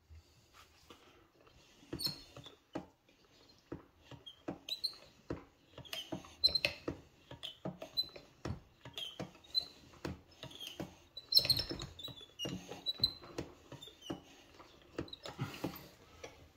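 Brake master cylinder being bench bled by hand: a run of irregular clicks and knocks as the piston is pushed in, with short high squeaks between them, while the remaining air is forced out through the bleeder tubes.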